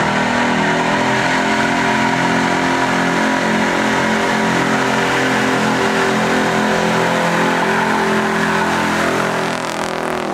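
Pickup truck's engine held at steady high revs during a burnout, its rear tyre spinning on the asphalt.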